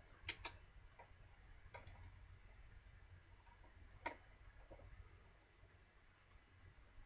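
Cricket chirping steadily in a high-pitched pulsing rhythm, about four pulses a second, with a few faint knocks and clicks near the start and about four seconds in.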